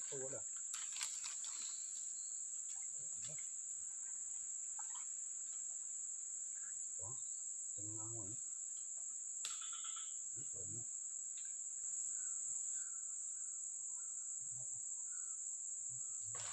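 Insects making one steady, high-pitched drone, with a few faint low sounds coming and going.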